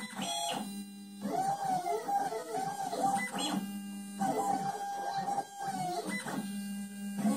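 Stepper motors of a homemade leadscrew-driven CNC router singing in tones that glide up and down as the axes speed up and slow down through a carving toolpath. Three times a steadier, buzzy tone holds for under a second.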